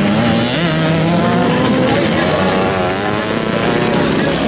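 Several motocross motorcycle engines running hard as the bikes pass close by, their pitch rising and falling with the throttle.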